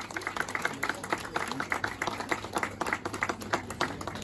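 Applause from a small group of people: sharp, separate hand claps, several a second, that stop near the end.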